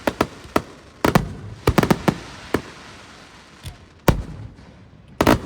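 Aerial fireworks bursting: an irregular run of sharp, echoing bangs, several close together in the first two seconds, a short lull, then a heavy bang about four seconds in and a quick cluster of bangs near the end.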